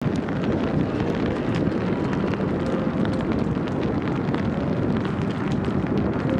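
Steady, distant rumble of a Boeing 737's jet engines on final approach, mixed with wind noise on the microphone.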